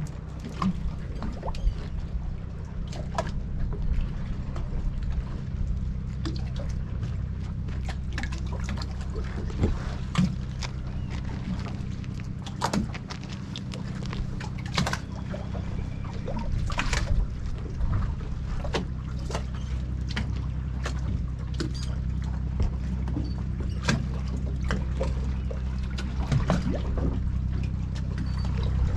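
Harbour water lapping and sloshing against the hull of a small moored fishing boat, with scattered small knocks and clicks over a steady low rumble.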